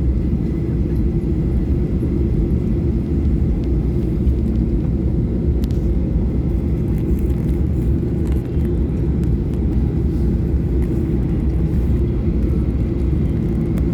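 Boeing 737-800 cabin noise before takeoff: a steady low rumble from the idling engines and airframe, with a faint thin steady whine above it.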